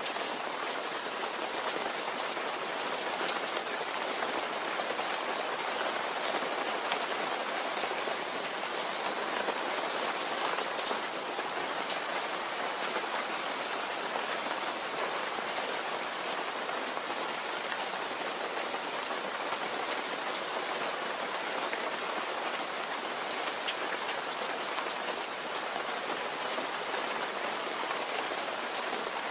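Steady rain falling and pattering on a surface, with scattered individual drop ticks over an even wash of noise.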